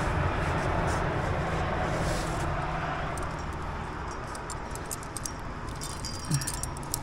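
Climbing rack of cams and carabiners clinking and jangling on the harness as the climber moves in the crack. The clinking starts about a third of the way in and is busiest near the end, over a steady rushing noise.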